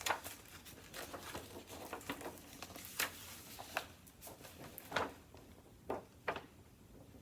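Soft, scattered clicks and light rustling from a picture book being handled and its pages turned, with a few sharper taps spread through.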